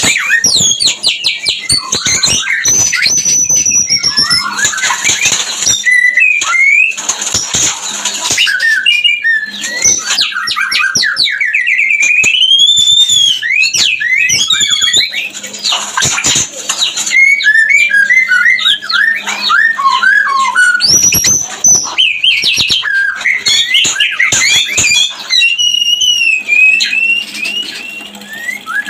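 White-rumped shama singing a fast, varied song of whistles, trills and chatter, the breeding-condition ("murai kawin") song used as a lure to bring captive shamas into breeding mood.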